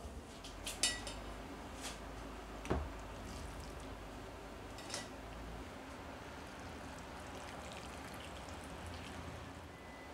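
A few sharp metallic clinks from a stainless steel pot and lid in the first three seconds, one with a short ring. Then a soft, steady sound of liquid being poured into a ceramic bowl.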